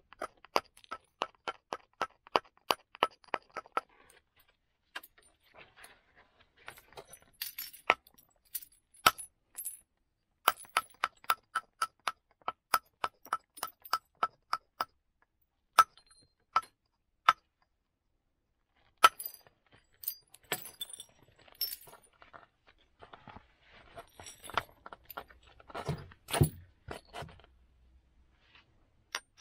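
Flint being knapped by indirect percussion, a wooden billet striking a moose-antler punch set on the flint: runs of quick, light, sharp taps with a faint ring, about three to four a second, broken by single harder knocks. Near the end come duller knocks and crunching of the flint.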